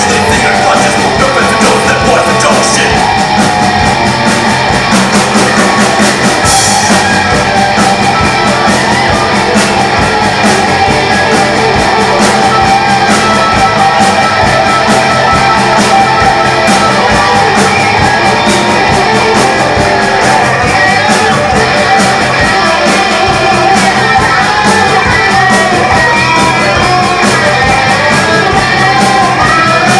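Live rock band playing loud: electric guitars, bass guitar and drum kit, steady throughout.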